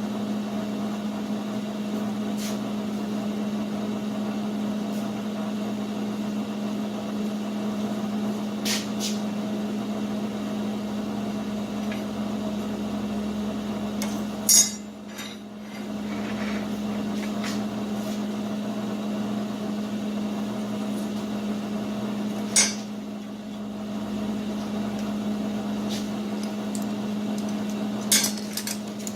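Steady electrical or machine hum in a metal shop, broken by a few sharp clanks of metal being set down or knocked, the loudest about halfway through and another near the end.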